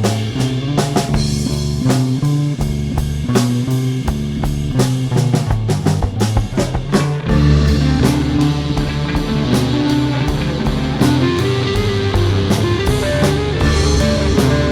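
Psychedelic rock track with electric guitar, bass and drum kit. About seven seconds in, the band gets fuller and a lead guitar bends its notes.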